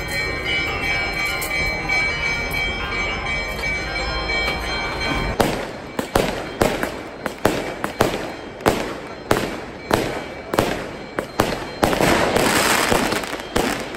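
A string of firecrackers going off: a steady ringing for about five seconds, then sharp bangs about every half second to second, ending in a dense rapid crackle near the end.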